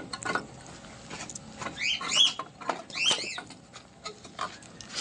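Light clicks and knocks from handling and seating a plastic tail-light housing in a metal vehicle body, with two short bursts of high squeaking about a second apart near the middle.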